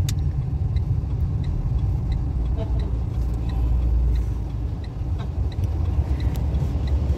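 Renault Clio driving slowly, its engine and road rumble heard from inside the cabin. A faint turn-signal ticks evenly, about three times a second, over the rumble.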